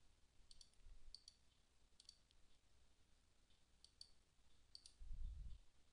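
Faint computer mouse clicks, about five of them spread through, each a quick double tick. A soft low thump comes about five seconds in.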